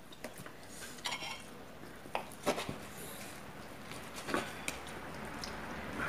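Knives and forks clinking and scraping against plates and a wooden board as roast pork is carved, with a few scattered sharp clicks.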